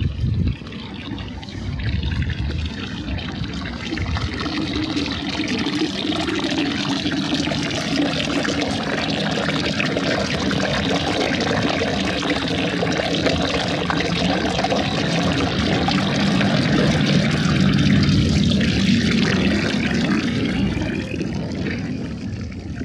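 Steady rushing water, growing louder past the middle and fading near the end, with a brief low thump at the very start.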